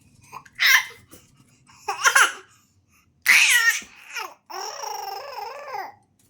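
A baby laughing and squealing in three short high bursts about a second apart, then babbling in a longer wavering sound that lasts about a second and a half.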